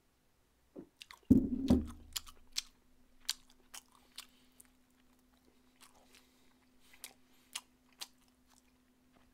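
A heavy thump about a second in as the drinking glass goes down on the table, then close-up eating sounds: biting and chewing pieces off a sausage-and-rice-cake skewer (sotteok-sotteok), with sharp wet clicks and smacks.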